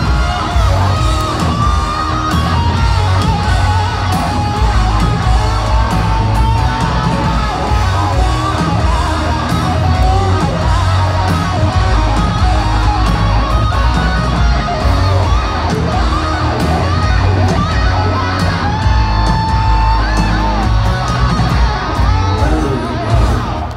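Live rock band over a big outdoor PA: a lead electric guitar from a Les Paul-style guitar plays a solo of bent and held notes over bass and drums.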